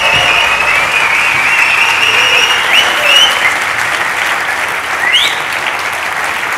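A large audience applauding steadily to welcome a speaker, with high whistles rising and falling over the clapping.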